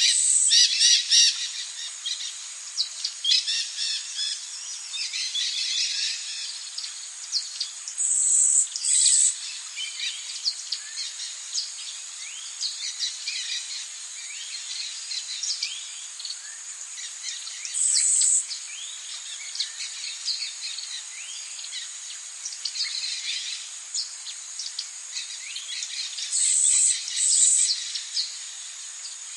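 Many birds chirping and singing at once over a steady high-pitched insect drone, with a few louder, brief high calls standing out now and then.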